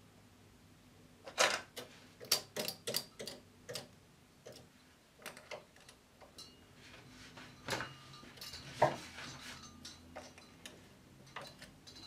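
Sharp clicks and light clatter of a domestic knitting machine's metal latch needles and a plastic needle pusher, as stitches are hung onto the needle hooks and the needles are pushed into position. A quick run of clicks comes about a second in, then scattered clicks follow, the loudest near the end.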